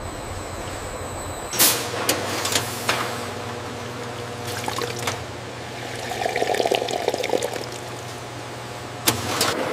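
AI-generated factory sound effects: cola pouring from filler nozzles into glass bottles, fizzing over a steady low machine hum. A sharp clink comes about a second and a half in and another near the end, and the pouring and fizzing grow louder about six seconds in.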